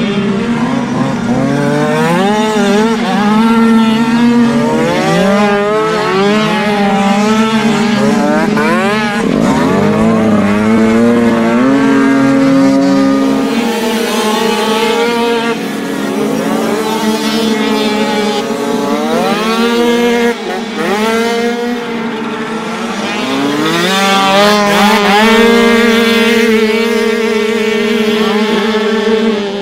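Several small 49cc two-stroke dirt-bike engines running hard, their pitch climbing and dropping again over and over as the riders accelerate, shift and ease off.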